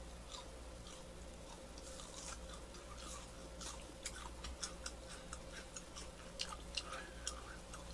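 Close-miked chewing of butter-toasted gijeongtteok (Korean fermented rice cake): soft, crisp mouth clicks and smacks, growing more frequent in the second half.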